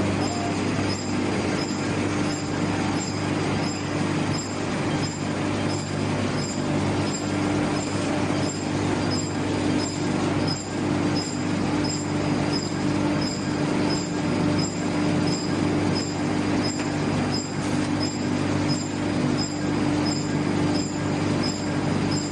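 Wood pellet production line machinery running steadily: a constant mechanical hum and rumble with a regular ticking clatter about twice a second.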